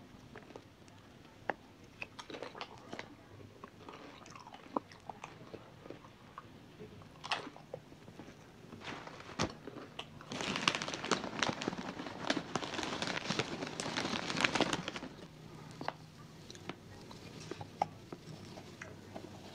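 Close-up eating sounds: chewing and crunching, with scattered sharp clicks from a plastic fork and a clear plastic food container. About ten seconds in, a louder run of dense crunching and crackling lasts about four seconds before the quieter chewing and clicks return.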